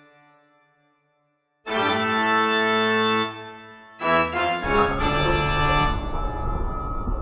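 Background organ music. A held chord fades into a brief silence, a second chord is held for under two seconds and fades, and about four seconds in a fuller passage with a busy low end begins.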